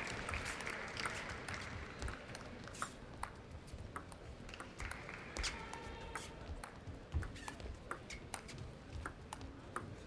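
Table tennis ball giving scattered light clicks and taps as it bounces and is handled between points, over a quiet arena hubbub. Applause dies away over the first second, and there is a brief squeak around the middle.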